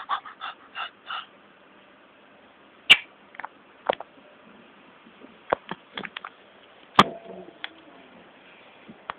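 Sharp taps or knocks, about ten of them at irregular intervals, the loudest about three and seven seconds in, after a quick run of five short pulses in the first second.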